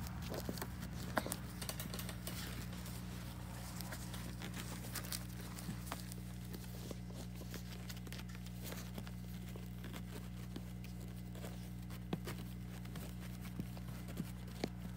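Puppies' paws scrabbling and pattering on a quilted pad: scattered light ticks and scratches throughout, over a steady low hum.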